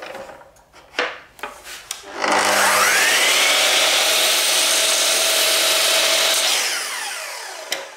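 Sliding mitre saw: a few handling clicks, then the motor starts about two seconds in with a rising whine. It runs steadily while the blade is lowered into a small piece of wood for a kerf cut that stops short of the full width, then winds down near the end with a falling whine.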